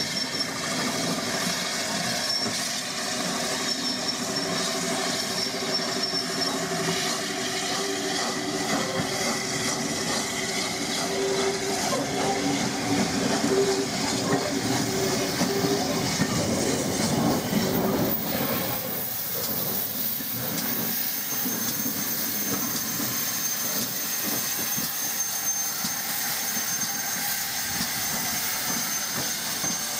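LNER A4 steam locomotive hauling a train of coaches slowly past, wheels rolling on the rails and steam hissing. A thin high squeal comes and goes.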